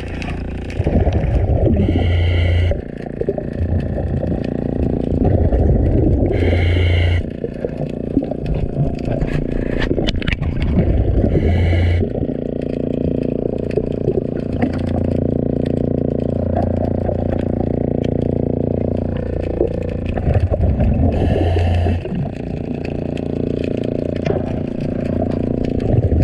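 A scuba diver breathing underwater through a regulator: a short hissing inhale roughly every five seconds, with a rumbling, gurgling stream of exhaust bubbles between breaths. Scraping on the hull runs underneath as growth is cleaned off.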